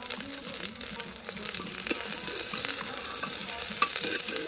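Dried buffalo meat (sukuti) and onions sizzling as they fry in a metal pot, stirred with a metal ladle that clicks and scrapes against the pot. One sharper clink of the ladle comes near the end.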